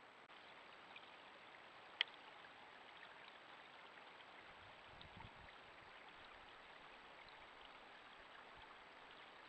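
Near silence: the faint hiss of a trail camera's microphone with soft trickling water and scattered small ticks. A single sharp click about two seconds in.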